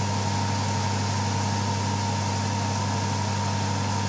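A steady low mechanical hum with an even hiss over it, like a motor or fan running.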